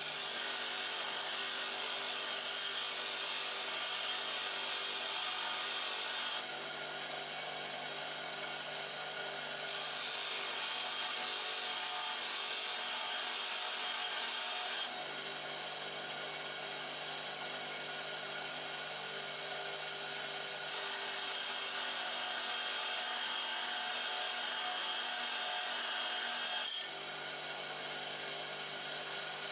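Bench grinder running with a steel woodturning tool held against the spinning wheel, a steady grinding over the motor's hum. The grind changes a few times, about 6, 10, 15 and 27 seconds in, as the tool is pressed on, moved and eased off.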